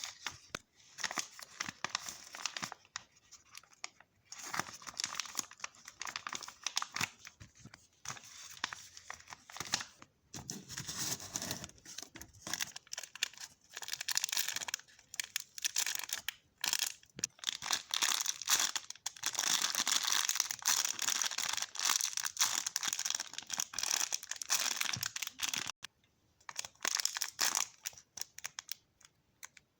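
Plastic packaging crinkling and rustling in irregular bursts, with tearing, as small items are packed by hand.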